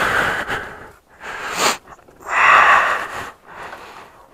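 A person breathing loudly close to the microphone: three breaths, the third the longest and loudest.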